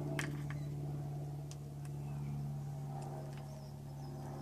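A knife blade clicking against the lid of a sealed metal tobacco tin as it is pried at: a sharp click just after the start, then a few lighter clicks. A steady low hum runs underneath.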